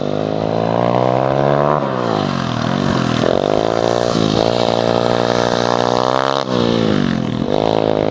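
Small mini dirt bike (pit bike) engine revving hard as it rides past. The pitch climbs, drops sharply and climbs again several times, with a brief cut about six and a half seconds in.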